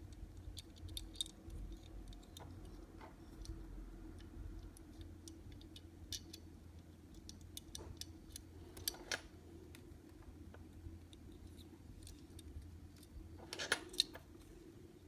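Small clicks and ticks of a 1/64 scale diecast toy car and its tiny wheels being handled as the wheels are fitted, with a couple of sharper clicks about nine seconds in and a short cluster near the end.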